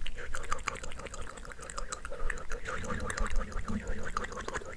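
Close-miked ASMR mouth sounds: many quick wet clicks and smacks of the tongue and lips, with no clear words.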